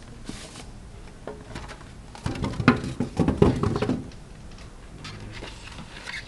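Handling noises: a short rustle near the start, then a quick flurry of taps and rustles lasting about two seconds.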